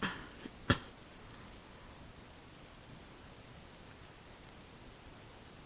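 A faint, steady, high-pitched whine over low hiss, with a single sharp click about three-quarters of a second in.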